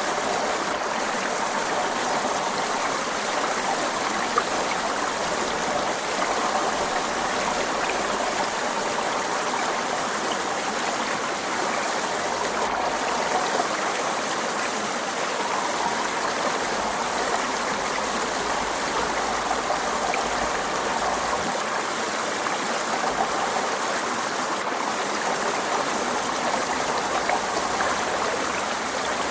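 Forest stream water flowing steadily, a continuous, even rush of running water.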